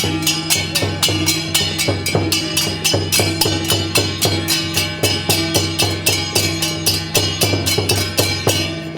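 Traditional percussion music with drums and struck metal ringing, played to a quick, steady beat.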